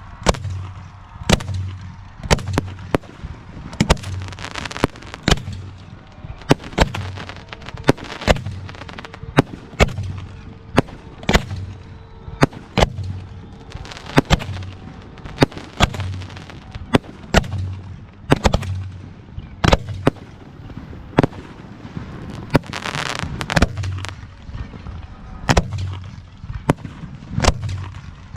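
Aerial fireworks display: shells bursting in a steady string of sharp bangs, about one or two a second, with crackling between them and a denser crackling spell a little past two-thirds of the way through.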